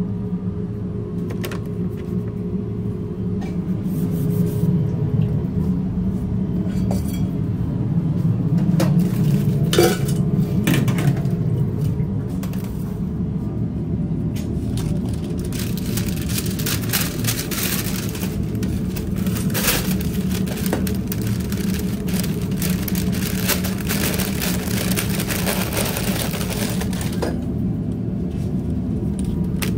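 Commercial kitchen sounds: a steady low hum with the clatter of steel bowls, pans and utensils being handled. From about halfway a steady sizzle of hot oil, fitting onion rings going into the deep fryer.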